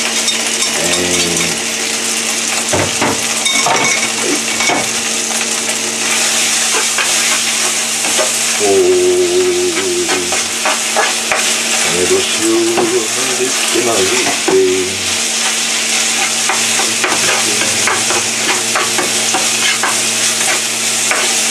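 Rice sizzling as it stir-fries in a frying pan, stirred with frequent scrapes and clicks of a utensil against the pan over a steady frying hiss.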